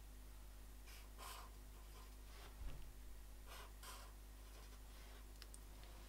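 Marker pen drawing on paper: about half a dozen short, faint scratchy strokes, with a soft low thump about two and a half seconds in.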